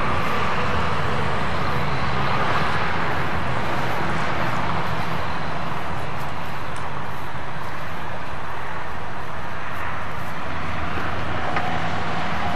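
An engine running steadily, with a constant rush of noise and no change in level.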